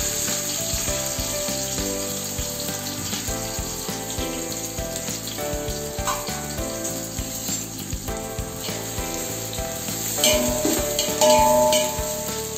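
Sliced onions sizzling steadily in hot oil in a large aluminium pot, just after being tipped in. Near the end a spoon stirs them against the pot.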